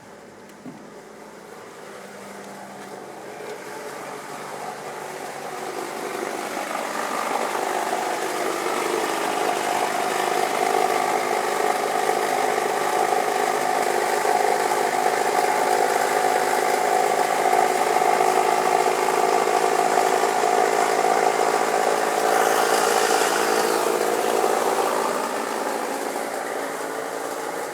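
1998 Toyota RAV4's four-cylinder engine running with a terrible noise, a steady mix of tones that grows louder over the first several seconds, holds, then eases off near the end. The owner traced the noise to a timing belt that needed replacing.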